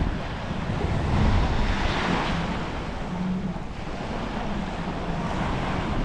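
Surf breaking and washing onto the beach, swelling about a second in and easing off, with wind rumbling on the microphone.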